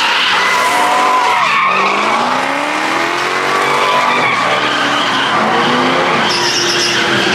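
Pickup truck spinning donuts: its tyres screech steadily against the asphalt while the engine revs up and down.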